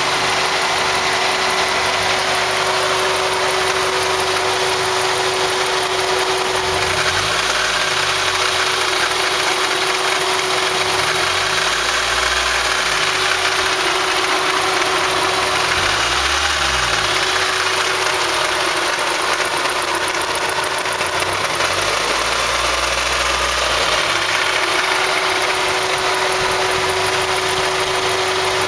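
Nissan 240SX's KA24E 2.4-litre SOHC four-cylinder engine idling with a rattling, clunking noise, the kind often taken for timing-chain and guide rattle. The rattle comes from a loose alternator pulley.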